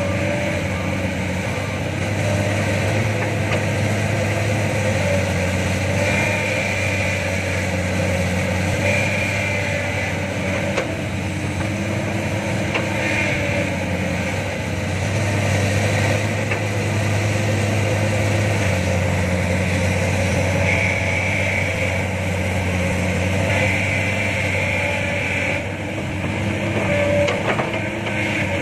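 Diesel engines of a hydraulic excavator and a dump truck running steadily, the sound swelling and easing every few seconds, with a higher whine coming and going as the excavator works its bucket.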